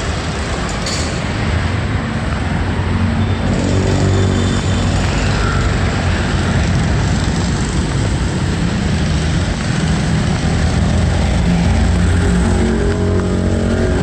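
Busy road traffic passing close by: a steady rumble of engines and tyres that swells slightly a few seconds in and stays loud.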